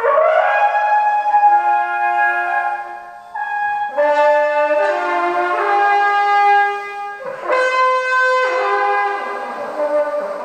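Brass-like horn sculpture of coiled copper tubing with a cast metal bell, blown through a mouthpiece: several held notes sounding together and overlapping, shifting pitch every second or two.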